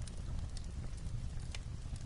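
Wood fire crackling in a fireplace, with irregular sharp pops, over a steady low rumble of light rain on a roof.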